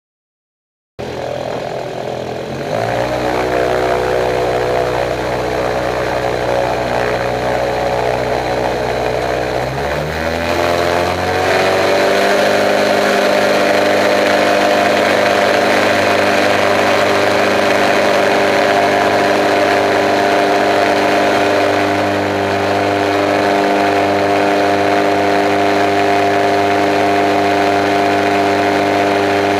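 Kolb Kolbra light aircraft's engine and propeller heard from the cockpit. The engine starts about a second in, rises in pitch around ten seconds in as the throttle opens for the takeoff roll, then holds a steady high-power note through the climb-out.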